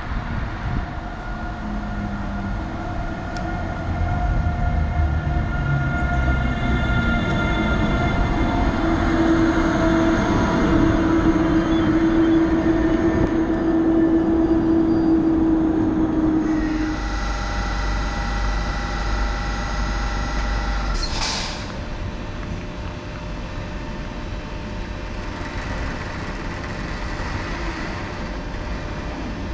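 NS TRAXX electric locomotive and intercity coaches running into the platform: rolling rumble with several steady squealing tones from wheels and brakes, loudest in the middle. Then a heavy low rumble and a short loud hiss about two-thirds of the way through, after which the noise settles lower as the train slows.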